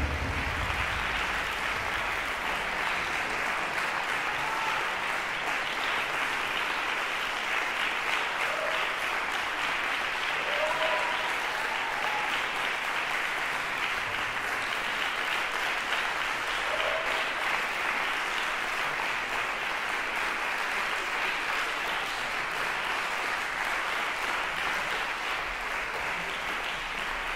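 Concert audience applauding steadily as the performers bow, with a few brief voices calling out among the clapping.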